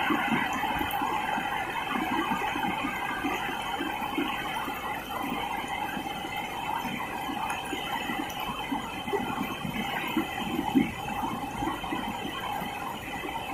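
Fast river rapids rushing steadily over rocks, a continuous churning of white water.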